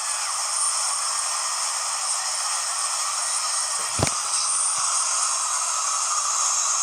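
Steady hiss with a single click about four seconds in.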